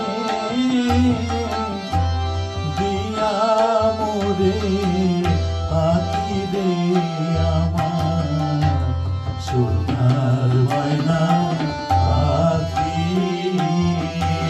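Live Bengali folk music: tabla playing a steady rhythm with deep, resonant bass-drum strokes, over sustained harmonium and strummed acoustic guitar, with a male voice singing the melody.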